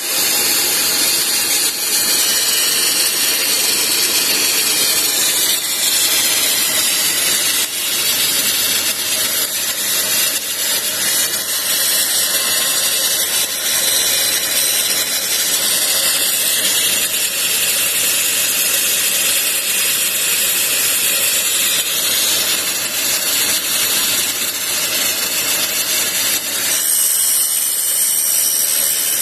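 A Deckel tool and cutter grinder's wheel grinding the flutes of a milling cutter, a loud, steady, high-pitched hiss with the motor running underneath.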